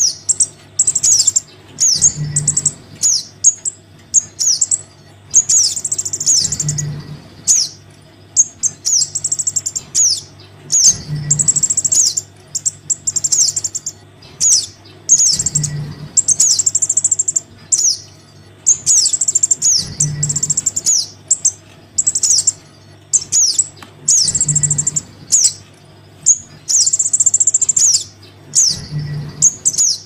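Sogon nestlings giving high, rapid begging chirps to call their parent, in bursts of quick falling notes, played as a looped bird-lure call that repeats about every four and a half seconds with a soft low thump at each repeat.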